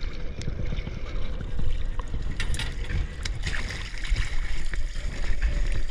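Choppy sea water sloshing and splashing against a boat's hull, with wind rumbling on the microphone and a few light knocks.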